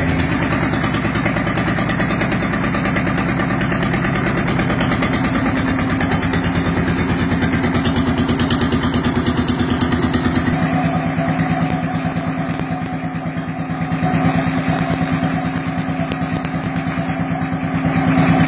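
HMT 5911 tractor's diesel engine running with a steady, rapid pulsing note. Its sound changes about ten seconds in, dips briefly a little after that, then picks up again near the end.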